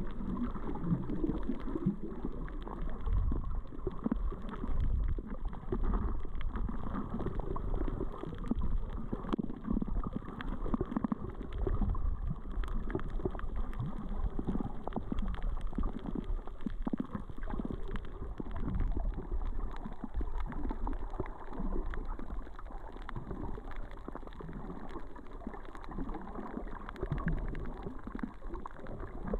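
Muffled underwater noise picked up by a camera in a waterproof housing: low, uneven sloshing and rumbling of moving water, with faint scattered clicks.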